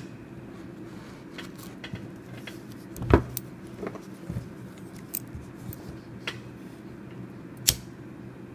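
Paracord ends being cut with a large knife on a plastic cutting board: small handling clicks, and a thump about three seconds in as the knife comes down on the board. Near the end a sharp click as a BIC lighter is struck to melt the cut ends.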